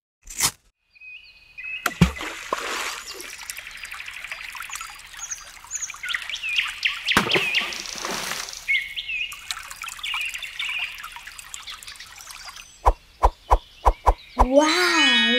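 Small stream of water trickling and pouring, with birds chirping over it. A quick run of sharp clicks comes near the end, followed by a wavering pitched tone.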